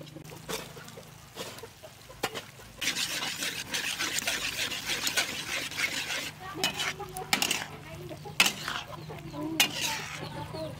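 An egg is cracked into a hot steel wok of mushroom and gourd stir-fry: a few light taps, then loud frying sizzle from about three seconds in as a metal spatula stirs it through. In the second half the spatula clanks sharply against the wok several times.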